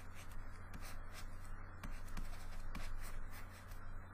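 Light scratching and taps of a stylus drawing pen strokes on a tablet, irregular and short, over a steady low hum.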